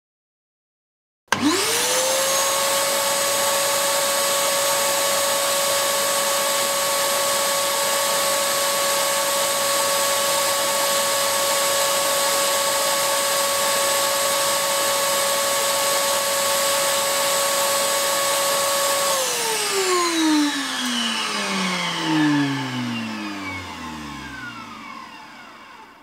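Ryobi stainless-steel wet/dry shop vacuum switched on about a second in. Its motor spins up within a second to a steady whine over the rush of air and runs for about 18 seconds. It is then switched off and winds down with a falling whine, fading out over about seven seconds.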